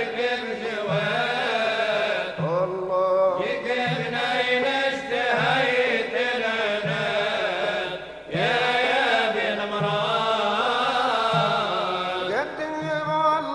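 Music: a wavering, ornamented melody over a steady low beat.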